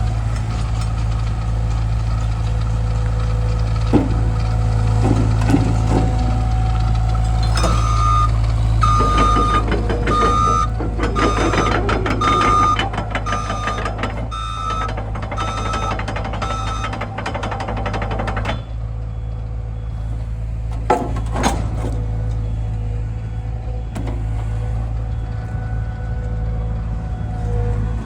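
The diesel engine of a Liugong 909ECR excavator runs steadily. About seven seconds in, its travel alarm starts beeping roughly once a second and keeps it up for about ten seconds, then stops.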